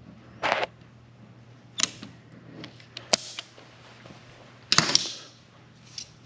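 Caulking gun working a tube of polyurethane sealant: a handful of sharp clicks and short squeezes, spaced a second or so apart, with the loudest a little before the end.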